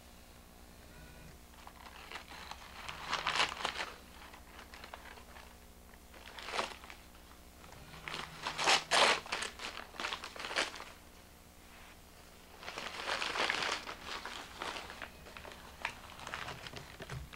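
A sheet of newspaper crinkling and rustling as a baby grabs and mouths it, in several bursts of a second or two with quieter gaps between.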